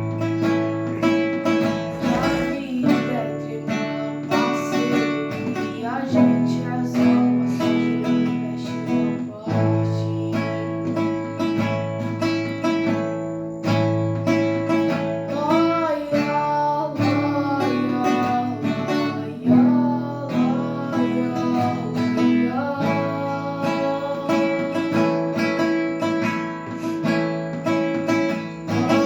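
Acoustic guitar playing a song, plucked and strummed.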